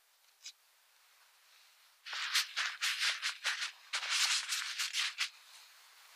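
Paper towel rustling and crinkling as a hand lays a sheet over halved strawberries and pats it down to blot them: a dense run of scratchy rustles that starts about two seconds in and lasts about three seconds. A single light tap comes about half a second in.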